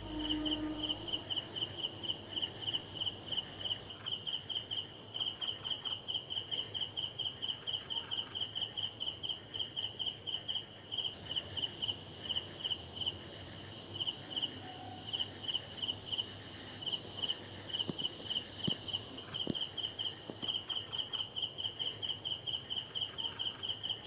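Crickets chirping in a fast, even pulse, about four chirps a second, with a second higher chirping band above it.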